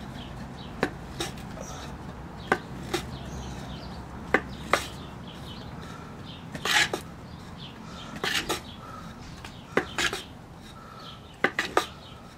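A wooden board rubbed back and forth over a cotton fire roll on a wooden plank, with sharp wooden knocks, often in pairs, as the board is pushed and pulled: hand-rolling the cotton and iron-powder roll tight by friction.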